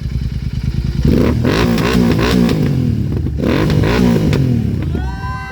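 Royal Enfield Continental GT650's 650 cc parallel-twin engine revved in neutral. It idles, is blipped up and down repeatedly from about a second in, dips briefly just past the middle, revs again, and settles back to idle near the end.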